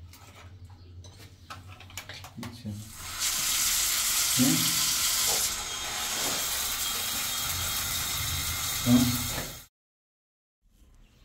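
Water spraying from a newly fitted shower, preceded by light clicks and knocks of the fittings; the spray starts about three seconds in, runs as a steady loud hiss, and cuts off abruptly near the end.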